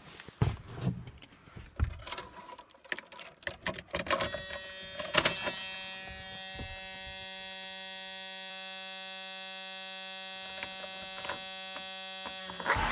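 Knocks and clicks of someone settling into a pickup cab. About four seconds in, a steady electrical buzz starts as the ignition of the 5.9 L Cummins diesel Dodge Ram is switched on. It holds evenly and cuts off near the end as cranking begins.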